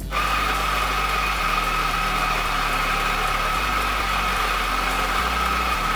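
Macap M42D espresso grinder switching on and running steadily, grinding coffee beans for a timed espresso dose, with a steady high whine over the grinding hiss.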